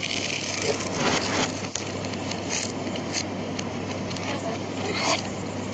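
Sheets of paper rustling and crinkling in the hands, with a few louder rasps, played backwards, over a steady low hum.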